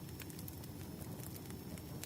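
Wood fire crackling: a steady low rumble of burning logs with irregular sharp pops and snaps scattered throughout.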